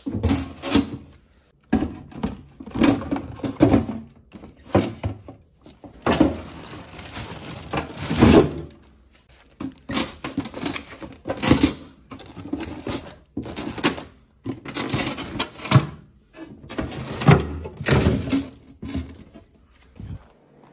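Groceries being handled and packed away: plastic packaging and bags rustling, with irregular knocks and clicks as packages are set down and shifted.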